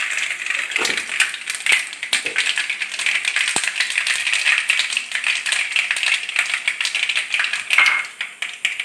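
Mustard and fenugreek seeds sizzling and spluttering in hot sesame oil in a kadai, a steady hiss under rapid, irregular pops. This is the tempering stage: the seeds bursting show the oil is hot enough.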